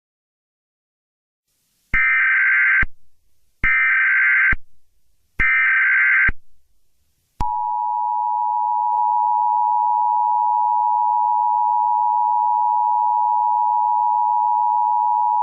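Emergency Alert System broadcast signal: three one-second bursts of the digital SAME header data, then the steady two-tone EAS attention signal sounding continuously from about seven seconds in.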